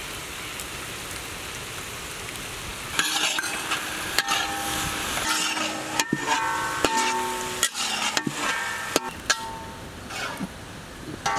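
Vegetables sizzling in hot oil in a wok; from about three seconds in, a spatula scrapes and knocks repeatedly against the wok as the stir-fry is tossed.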